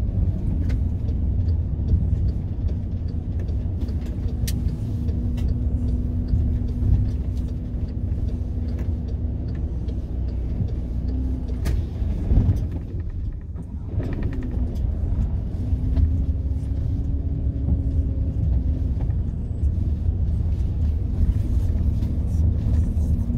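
VW Transporter T6 van driving, heard from inside the cab: a steady low engine and road rumble with a held engine note. About halfway through, the note drops and the sound dips briefly, then climbs again and settles.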